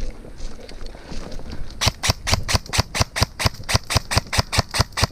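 Airsoft gun firing a rapid string of shots, about six or seven a second, starting about two seconds in and running on to the end; the shots score a hit on an opposing player.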